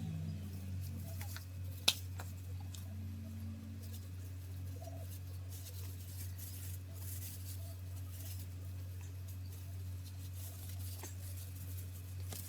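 Faint rustling, scratching and soft clicks of hair being worked through with hair dye, with one sharp click about two seconds in, over a steady low hum.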